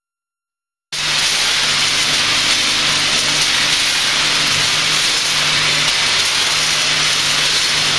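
Multihead weigher running on a frozen-food packing line: a steady, loud hiss-like machine noise with a faint low hum under it, cutting in suddenly about a second in after silence.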